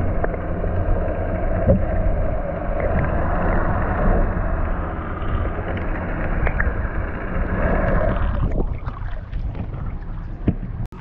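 Muffled rushing water noise from a submerged camera, over a low steady hum from the boat. About eight and a half seconds in the sound thins out abruptly to a lighter, airier noise with scattered ticks, as the view changes to above the water.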